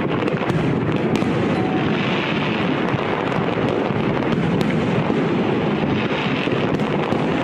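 Fireworks display: a continuous rumble of many overlapping bursts, with scattered sharp crackles and swells of hiss every couple of seconds.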